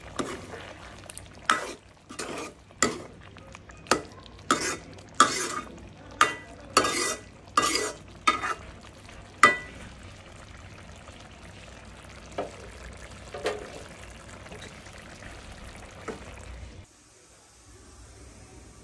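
Metal spatula stirring and scraping a thick mustard-paste curry of pointed gourd in a metal kadai: about a dozen sharp scrapes in the first ten seconds, then a few fainter ones, over a low steady background that stops near the end.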